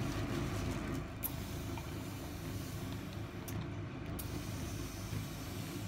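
A fine-mist spray bottle giving a few short spray hisses as water is misted over shaped bread dough before baking, to make the crust crisp. A steady low hum runs underneath.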